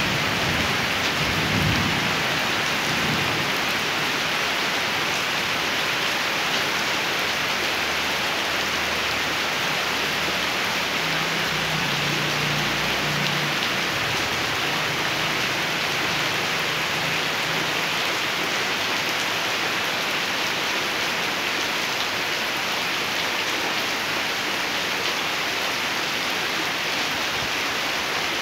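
Steady rain falling on wet concrete, an even hiss, with a low rumble of distant thunder through the middle.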